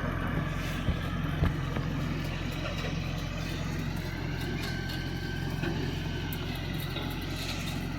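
Vehicle engine running steadily, with two faint knocks about a second in.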